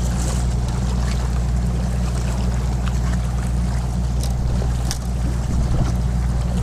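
A boat engine droning steadily at a low pitch, with water and wind noise over it.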